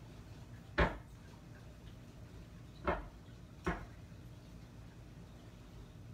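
A mixing utensil knocking against a bowl as cornbread batter is mixed: three sharp knocks, the first under a second in, then two about three and four seconds in.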